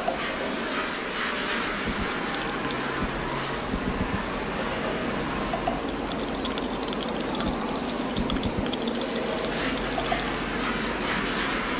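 A continuous rushing, rumbling noise, like a passing train or running water, with two long swells of high hiss that come in and cut off abruptly, about two and about eight and a half seconds in.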